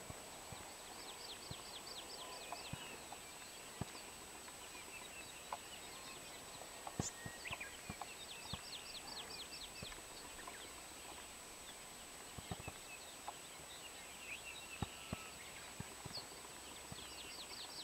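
Faint Hawaiʻi ʻamakihi song: a fast trill of about ten evenly spaced, high notes in just over a second, given three times, about a second in, around eight seconds in and near the end. Scattered soft knocks and a steady faint high whine lie under it.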